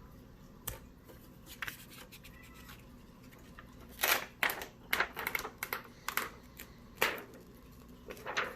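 Plastic protective film and its tape being peeled off a new laptop LCD panel: a few faint clicks, then bouts of sharp crackling and scratching from about four seconds in and again near the end.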